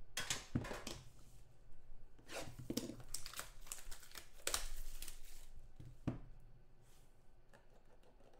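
Packaging crinkling and tearing as a trading-card pack is opened by hand, in a run of short irregular rustles that thin out near the end.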